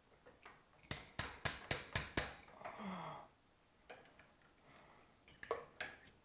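Sharp metal-on-metal clicks from an adjustable wrench worked on a hex key set in an airgun's stock nut: a quick run of about six clicks, about four a second, then a few softer scattered clicks.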